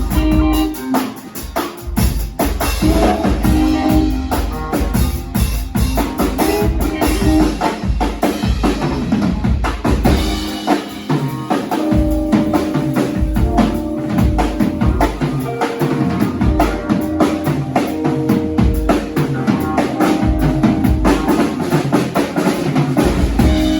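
A band playing: a drum kit drives the music with kick drum, snare and rimshots, over sustained pitched notes.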